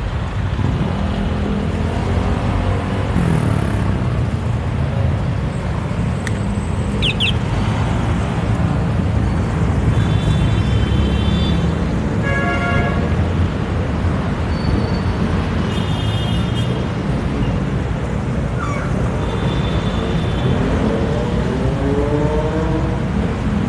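City road traffic heard from a moving bike, with steady wind rumble on the microphone. Short vehicle horn toots sound about ten and twelve seconds in and again around sixteen and nineteen seconds, and near the end an engine nearby speeds up with rising pitch.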